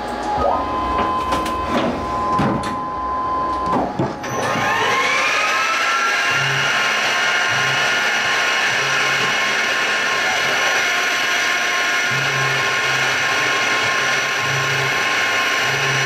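CNC benchtop mill spindle spinning up about four seconds in, its whine rising and then holding steady as a 1/8-inch center drill engraves a metal plate, with a steady hiss of coolant spray. A low hum comes and goes in short spells as the axes move. A few clicks and a steady tone come before the spin-up.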